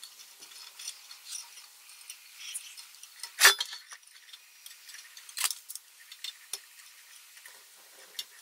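Scattered small clicks and light metallic taps as the oil rain lamp's metal frame and end discs are handled, with the loudest knock a little before halfway and another sharp one about two seconds later.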